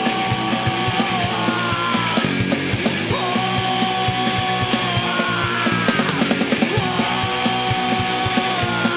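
Horror punk band playing live: distorted electric guitars and bass over fast, busy drumming, with a male singer singing hard into the microphone. Long held notes fall away in pitch at their ends.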